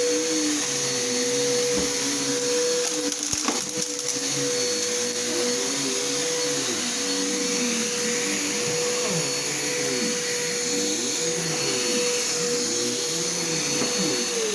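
Bissell PowerForce Helix Turbo upright vacuum cleaner running, with a steady motor whine over lower tones that waver up and down. A short click sounds about three and a half seconds in.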